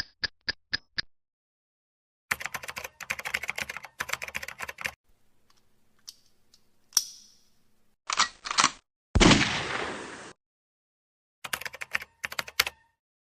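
A run of separate stock sound effects: a few evenly spaced ticks in the first second, then about two and a half seconds of rapid computer-keyboard typing, a short swish, a loud noisy burst that fades away over about a second, and a few more quick clusters of clicks near the end.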